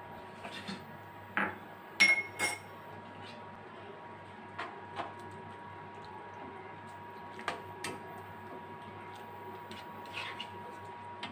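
Wooden spatula stirring soup in an aluminium kadai, knocking and scraping against the pan in scattered clinks, the loudest two close together about two seconds in with a brief metallic ring.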